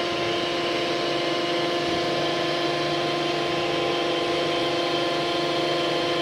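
Lincoln/Bode 10 VH welding positioner's three-phase motor and gearbox turning the table at its fixed speed: a steady whine at a constant pitch.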